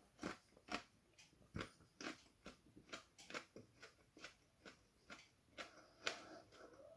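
A person chewing a whole thick-walled chilli pod, a Taj Mahal Pink Minion: a quick run of short, faint crunches, about two to three a second.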